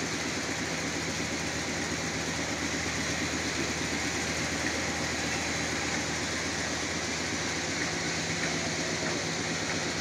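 Sawmill machinery running steadily, an engine with a constant hum that does not change in level or pitch.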